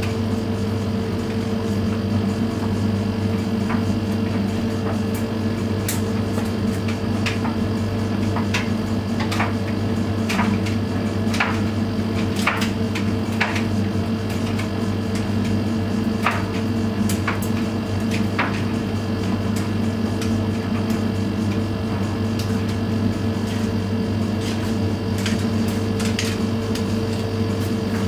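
Siemens iQ700 front-loading washing machine running: a steady motor hum as the drum turns, with irregular knocks and clicks from the laundry tumbling inside the drum.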